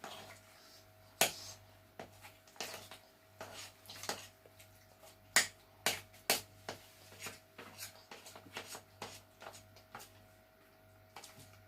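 A spoon stirring thick pancake batter in a bowl, knocking against the bowl's side in irregular sharp clicks.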